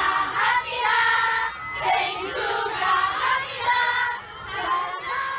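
Crowd of fans cheering and screaming in high voices, many overlapping, with held notes swelling and dropping several times.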